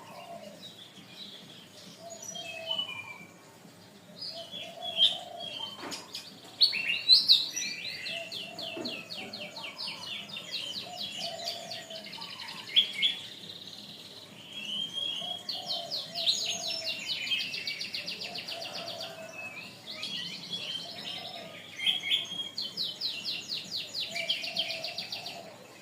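Canary singing a long, continuous song of chirps and fast rolling trills, several trill passages of a few seconds each, with brief softer low notes underneath.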